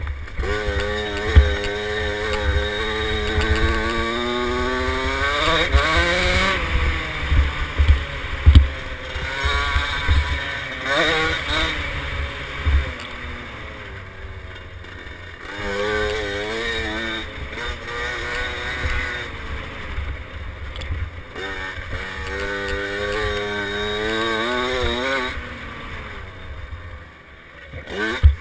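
KTM 50 SX mini dirt bike's small two-stroke engine revving up and down repeatedly while riding, with wind buffeting the microphone.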